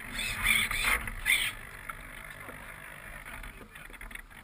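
Water splashing and sloshing against the hull of a radio-controlled sailboat moving through choppy water, heard close up from the deck. A few louder splashes come in the first second and a half, then the sloshing settles lower.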